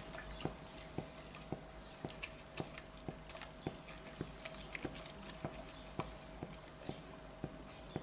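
A spoon stirring thick, hot soap mixture in a stainless steel pot as baking soda is added, knocking lightly against the pot about twice a second, over a faint steady tone.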